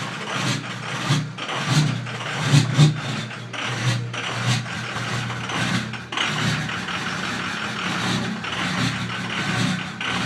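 Ford 6.0 Power Stroke V8 turbo-diesel idling roughly, its sound swelling and dipping unevenly: the sign of a failing fuel injection control module (FICM) putting out around 20 V instead of the normal 48 V.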